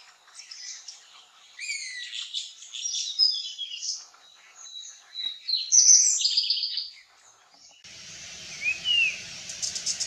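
Puff-throated babblers singing: a busy run of short whistled and chattering notes, loudest about six seconds in. About eight seconds in the background changes to a steadier hiss, with one rising-then-falling whistle.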